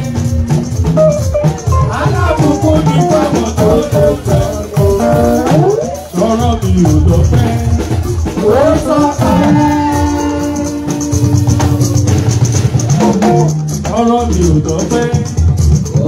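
Praise music with singing that glides between notes over bass and drums, and a shaker or rattle keeping a steady beat; one long note is held near the middle.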